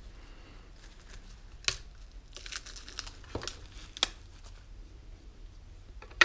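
Clear plastic wrap crinkling as it is peeled by hand off a resin figure's arm joint, with several sharp crackles, the loudest right at the end.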